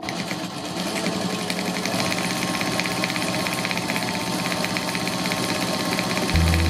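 Sewing machine running steadily at speed, stitching with a fast, even rhythm. A deep steady hum joins it just before the end.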